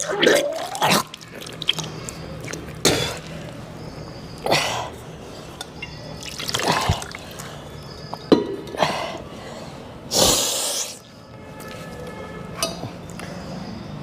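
Water splashing and dripping into a plastic basin in about half a dozen short spurts, a second or two apart: the last of the swallowed water being brought up during kunjal kriya, yogic self-induced vomiting.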